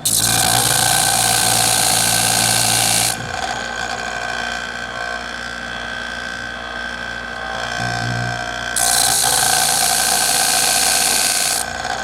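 Twice as Sharp sharpener's motor running while a dull rotary cutter blade is ground against its abrasive wheel, a loud hissing grind. The grinding comes in two passes: one of about three seconds that starts abruptly, and another from about nine seconds in until shortly before the end, with only the motor hum between.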